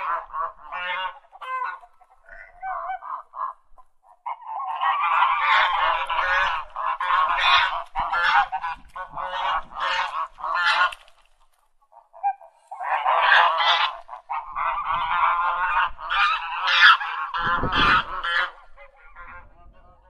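A group of geese honking, many calls overlapping in busy bursts, with a short lull about twelve seconds in.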